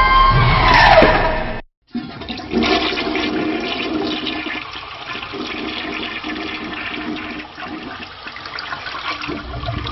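A siren sound effect winds down, dropping sharply in pitch, and cuts off about a second and a half in. A toilet then flushes, its rushing water running on through the rest.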